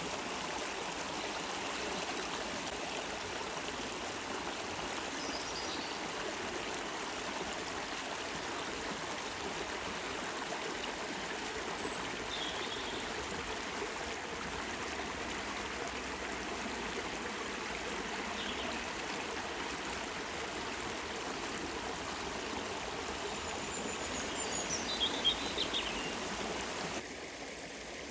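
Water of a small stream flowing and trickling steadily, with a few short high chirps now and then; the sound drops and changes abruptly shortly before the end.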